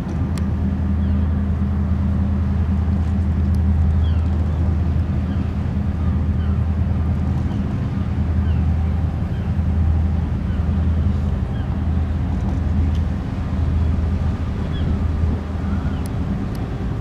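Ship engines running, a loud, steady low drone that holds at one pitch throughout.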